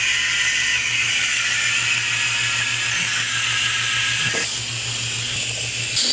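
Powered fluid pump running steadily with a hiss over a low hum, pumping automatic transmission fluid into a transmission that is seriously low on fluid.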